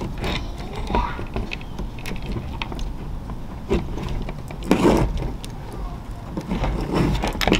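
Clicks, knocks and scraping of hand work on a fuel pump hanger assembly: a tool and plastic and metal parts being handled and pressed together. There are louder scraping bursts about five and seven seconds in.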